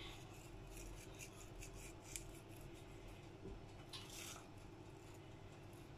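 Near silence with faint dry rustles and ticks from fingers crumbling and sprinkling dried parsley over a dish of cheese-topped macaroni, and a brief swish about four seconds in as the hand reaches into the parsley bowl.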